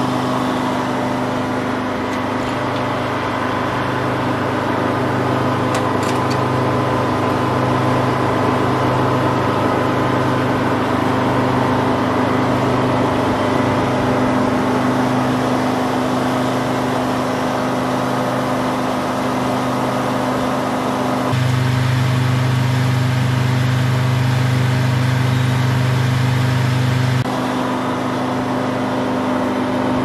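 Detroit Diesel engine powering a Frick circular sawmill, running steadily with a constant low hum. For about six seconds in the last third the hum grows louder, then drops back suddenly.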